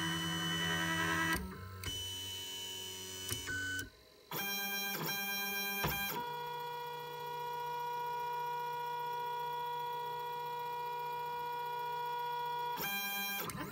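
Lulzbot Mini 3D printer's stepper motors whining in steady tones that jump in pitch every few seconds, with a brief pause about four seconds in, as the nozzle probes the metal discs at the bed corners during automatic bed levelling.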